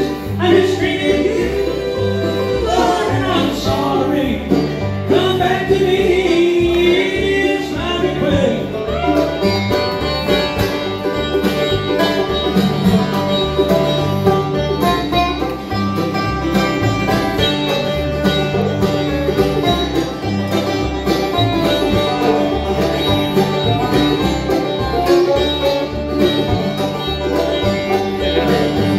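Live acoustic bluegrass band playing: banjo, mandolin, acoustic guitar and upright bass.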